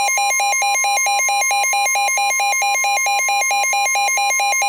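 NOAA Weather Radio's steady 1050 Hz warning alarm tone, with a weather radio receiver's fast alert beeping, about five or six beeps a second, sounding over it. The steady tone cuts off near the end while the beeping goes on. The alarm heralds a warning about to be read out.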